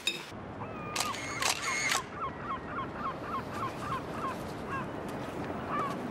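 Gulls calling in a quick run of short, hooked cries, about three a second, which thin out to scattered calls later on. A few sharp clicks come between about one and two seconds in.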